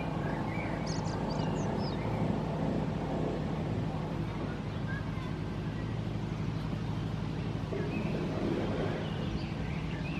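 A steady low mechanical drone, like a motor running in the background, with a few short high chirps over it.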